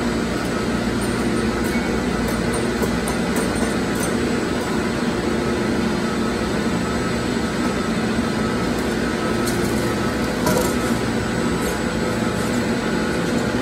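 Steady drone of chiller-plant machinery, with a few faint clinks of thin metal heat-exchanger plates being handled: a cluster near the start and another about ten seconds in.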